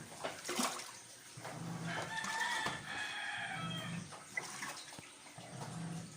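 A rooster crowing once, a long call about two seconds in. Under it is the low, pulsing hum of a Panasonic top-load washing machine churning its tub-clean cycle.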